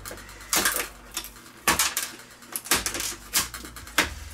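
A series of sharp clicks and scrapes, about five in four seconds, as stuck LED backlight strips are pried loose from the TV's metal back panel.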